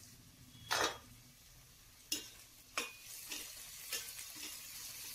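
Chicken cooking in its own juices in a stainless steel pot, sizzling, while a metal spoon stirs it and knocks against the pot about five times, loudest about a second in. The sizzle grows stronger after about three seconds.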